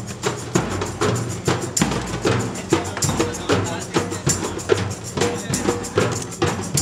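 Live hand-drumming: a large rope-tensioned bass drum (davul) with frame drums and a goblet drum keeping a quick, steady beat of about two to three strikes a second.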